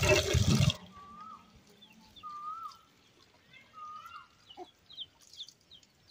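Running water, loud for under a second, then cut off. After that, faint bird calls outdoors: three similar short whistled calls about a second and a half apart, with small high chirps between them.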